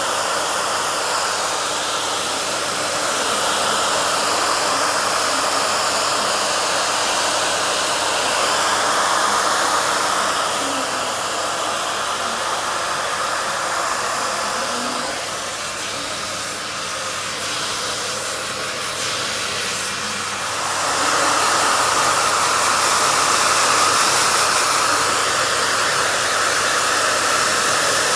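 YA-MAN Veda Bright hair dryer blowing steadily while drying hair. Its airflow noise dips somewhat past the middle, then comes back louder.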